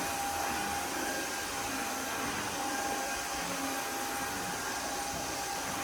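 Roidmi Neo cordless wet-and-dry vacuum running steadily while it vacuums and mops a laminate floor: an even motor rush with a steady whine.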